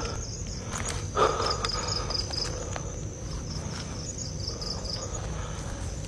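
Night insects chirping in short, repeated groups of high pulses over a steady high trill, with one short louder noise about a second in.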